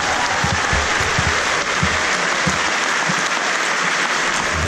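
Large audience applauding steadily, with a few scattered low thumps underneath.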